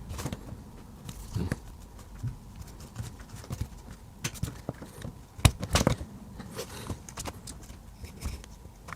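An opener tool prying along the seam of a plastic remote control case: scattered clicks and light scraping, with sharper clicks about five and a half and six seconds in.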